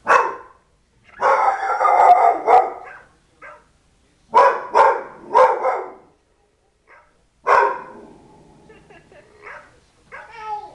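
Pit bull barking in separate bursts: a bark at the start, a longer run of barking about a second in, three barks between about four and six seconds, and another bark near eight seconds that trails off into a low rumble.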